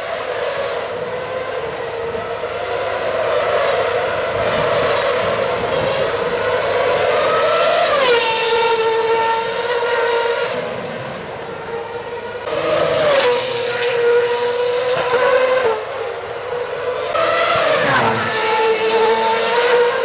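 2010 Formula 1 cars' 2.4-litre V8 engines heard trackside, a continuous high-pitched engine whine that rises and falls as the cars accelerate and lift off. The pitch drops sharply about eight seconds in and again near the end.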